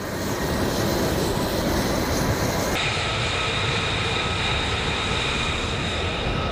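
Steady jet engine noise on an airfield: a continuous rumble, joined about three seconds in by a thin high whine.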